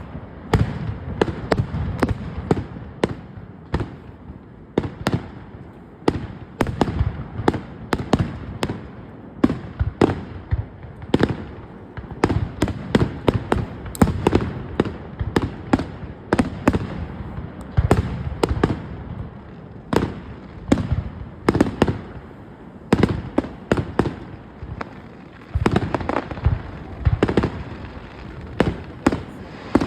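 Aerial fireworks bursting in a continuous barrage, several sharp bangs a second with low rumbling between them.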